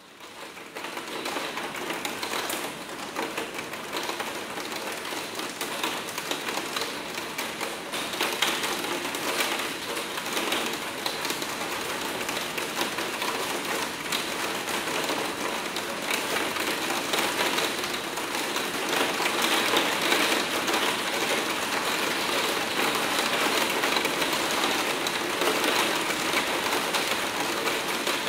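Hard rain pattering on a skylight window: a dense, steady spatter of drops striking the pane. It fades in over the first second and grows slightly heavier in the second half.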